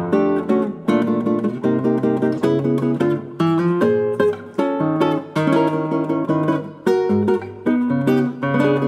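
Luthier-built nylon-string classical guitar played solo with the fingers, a bossa nova piece: repeated plucked chords over a moving bass line.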